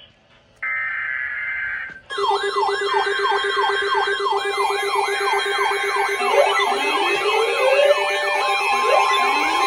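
A short burst of warbling data tones like an EAS header, then several electronic sirens sounding together: a fast yelp sweeping up and down about three times a second over a steady low tone, with slower rising wails joining in later.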